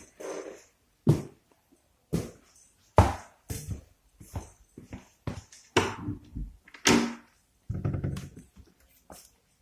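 A string of sharp knocks and thuds, about one a second, with a longer low rumble near the end: dishes, cans and utensils being handled as cat food is dished out.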